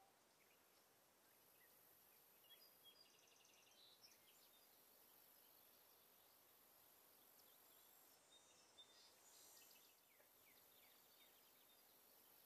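Near silence: faint outdoor ambience with a few faint high chirps, like distant birds, in two clusters.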